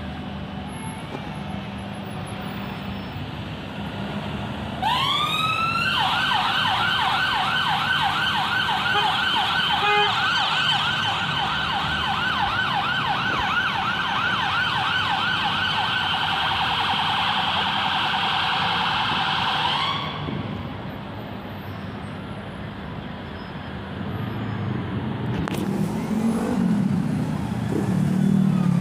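Ambulance siren on an emergency response. It winds up with a rising sweep about five seconds in, then sounds a rapid up-and-down yelp that cuts off suddenly about twenty seconds in. Steady city traffic runs underneath, with a low engine rumble growing near the end.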